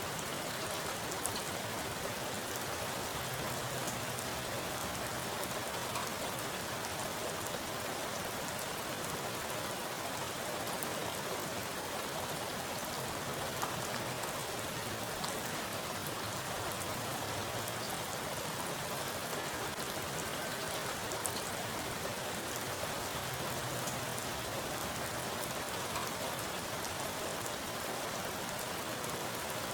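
Heavy rain falling steadily onto a pool of standing water, a constant hiss with scattered individual drop splashes.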